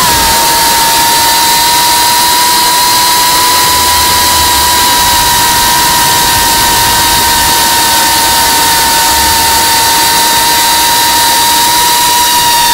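Geprc Cinelog 35 FPV drone's brushless motors and propellers whining steadily in fast forward flight, over a rushing hiss. The pitch dips slightly right at the start and then holds level.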